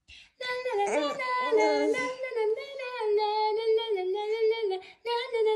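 A woman singing a wordless melody in a high voice, holding long notes that glide up and down, with a short break near the end.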